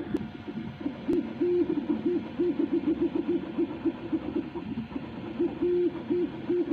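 3D printer stepper motors whirring in a run of short bursts at one steady pitch, starting and stopping several times a second, over a low hum, with a couple of sharp clicks near the start.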